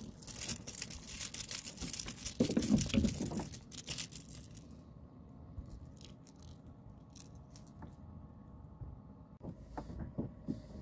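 Clattering and rattling of a freshly caught small fish and the lure's hooks being handled close to the microphone, busy and loud for the first four or five seconds, then only faint scattered clicks as the hooks are worked free.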